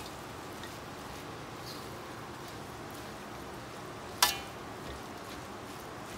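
Fried rice sizzling steadily in a wok while it is stir-fried with a spatula. About four seconds in, the spatula strikes the wok once with a sharp clank.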